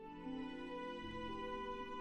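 Background music of long held notes.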